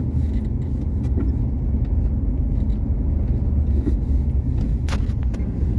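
Renault Duster driving on a snowy road, heard from inside the cabin: a steady low rumble of engine and tyres, with one short click a little before the end.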